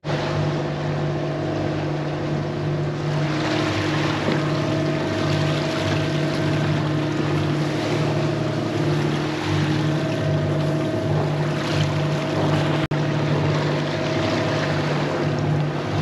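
Lagoon 440 catamaran's diesel engine running steadily as the boat motors along, a low drone with wind and water rushing over it. The sound drops out for an instant about thirteen seconds in.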